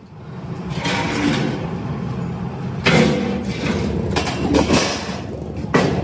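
Steel frame and sheet metal being handled: a steady rumble with irregular knocks and clanks, the loudest about three seconds in and again near the end.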